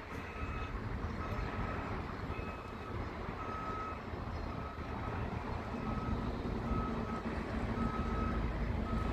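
A vehicle's reversing alarm beeping about once a second, each beep a short single high tone, over a steady low rumble of engines and traffic.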